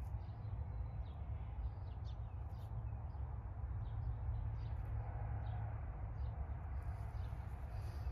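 Outdoor ambience: a steady low rumble with birds chirping over it in short, repeated calls.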